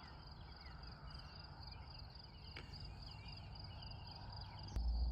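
Crickets trilling steadily, a high pulsing buzz, over a faint low rumble; near the end the low rumble suddenly grows louder.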